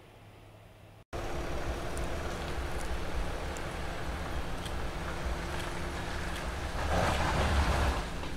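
An Ineos Grenadier 4x4 off-roader's engine running under load as it drives through wet sand and mud, with tyre and spray noise. It starts suddenly about a second in after a faint hum, and swells louder near the end.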